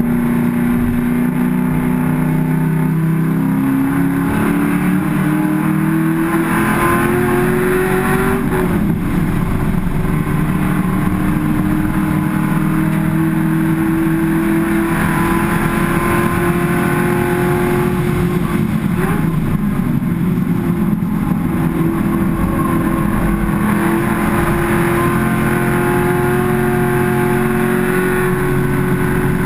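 Race car engine heard from inside the cockpit, running hard on track. The pitch climbs over the first several seconds, breaks off briefly about nine seconds in and again around nineteen seconds, then holds high and steady.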